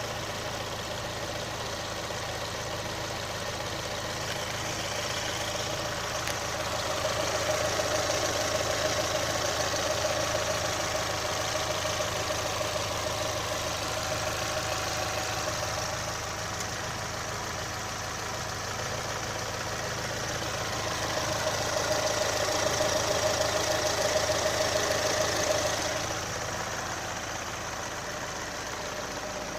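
Engine of a 2018 Chevrolet Onix LT 1.0 running, with the engine noise the owner complains of. The sound gets louder twice for several seconds, then settles back.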